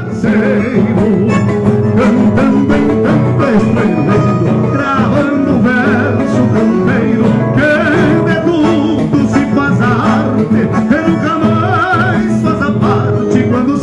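Live gaúcho folk music from a band of accordion, acoustic guitars and percussion, with a man singing over it.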